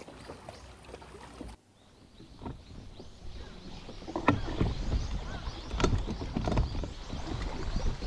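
Small waves slapping and knocking irregularly against a bass boat's hull, with a low rumble of wind on the microphone. The knocks get louder in the second half.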